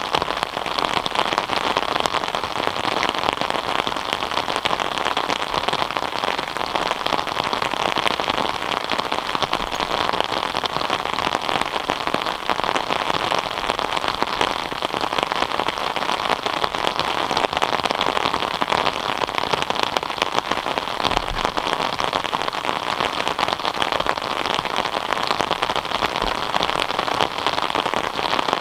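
Steady rain falling, a dense even patter of many drops hitting surfaces.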